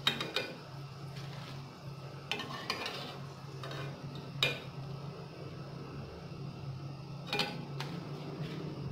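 Slotted metal spatula clinking and scraping against a metal wok while scooping fried pakoras out of the hot oil, a few sharp clinks spread through, over a steady low hum.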